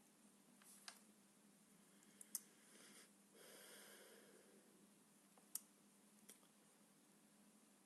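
Near silence: room tone with a faint steady hum, a few faint clicks, and a soft breath-like noise about three to four and a half seconds in.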